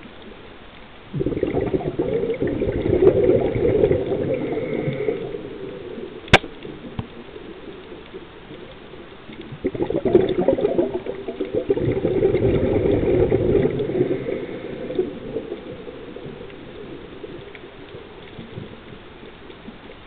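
Scuba diver's exhaled breath bubbling out of the regulator underwater: two long exhalations, each bubbling for about four seconds, with quieter inhalations between them. A single sharp click comes about six seconds in.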